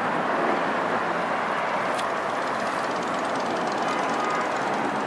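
Steady road traffic noise, an even rush of passing cars that holds at a constant level.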